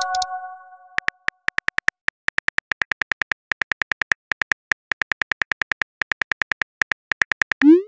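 Phone keyboard tap clicks in a rapid run as a text message is typed, starting after a chime fades out in the first second. Near the end comes a short rising swoosh as the message is sent.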